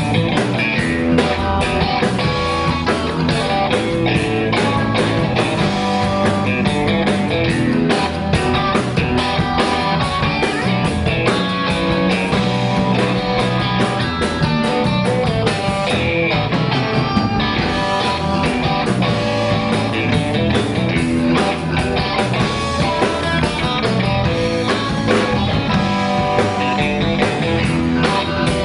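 Live blues-rock band playing, with electric guitar lines over bass and a drum kit.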